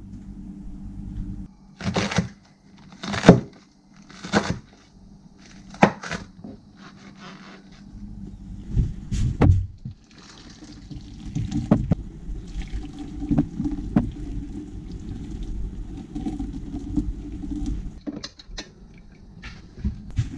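A few sharp knocks about a second apart, then hot water poured from an electric kettle over sliced fatty beef in a dish, blanching it to draw out the scum.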